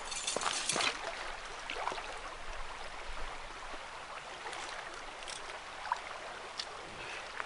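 River water rushing steadily over a shallow riffle, with a few brief clicks and rustles on top.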